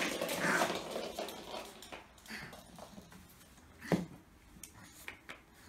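Small dog scampering and scrabbling about on a wooden floor and a blanket, its claws ticking and scuffing; the scuffling is loudest at first and dies down, with one sharp knock about four seconds in.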